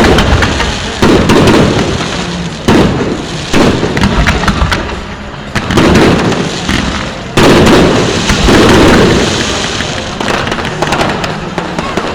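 Aerial fireworks bursting in quick succession: a new loud bang every second or two, each trailing off in a rumbling crackle that overlaps the next. The biggest burst comes about seven seconds in.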